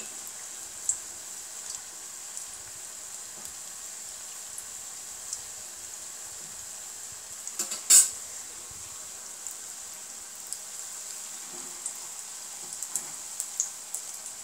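Sweet potato toffees deep-frying in hot oil: a steady sizzle with scattered small pops and crackles. About eight seconds in, a metal spoon knocks sharply once against the pan as the pieces are turned.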